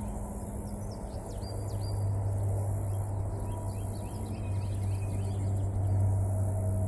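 Small birds chirping and insects buzzing over a steady low hum.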